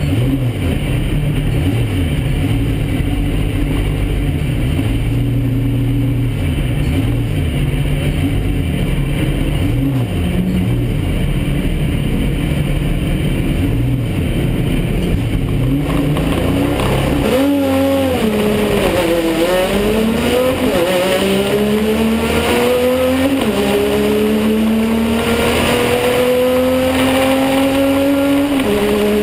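TC 4000 race car's engine heard from inside the cabin: held at revs and blipped up and down on the starting grid, then launched about two-thirds through, its pitch climbing hard with two sharp drops at upshifts, one of them near the end.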